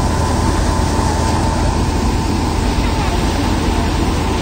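Mustard threshing machine running steadily under load: a constant low mechanical drone with a steady high whine over it.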